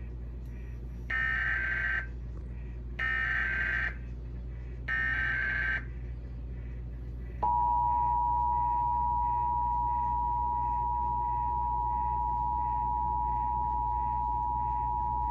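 Emergency Alert System Required Monthly Test: three identical short bursts of SAME header data tones, about a second each and a second apart, then about two seconds later the EAS two-tone attention signal, a steady dual tone held for about eight seconds, announcing the alert.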